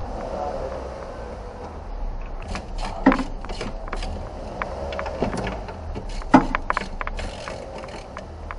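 Metal hand tools clicking and clinking against engine parts while a wrench with an extension is worked in an engine bay, with two sharper knocks about three and six seconds in, over a steady low hum.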